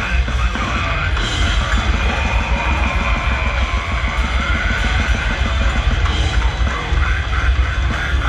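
Death metal band playing live at full volume: distorted electric guitars over heavy bass and fast, dense drumming, as heard from within the crowd.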